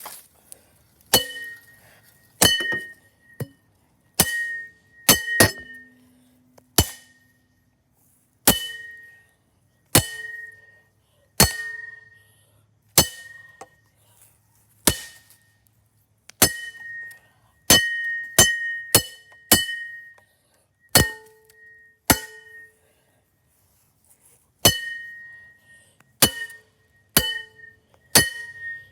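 Part of a 2009 Harbor Breeze Builders Best ceiling fan being struck over and over, about twenty sharp blows at an uneven pace of roughly one a second. Each blow clinks and rings on briefly with the same bell-like tones, with short pauses between runs of strikes.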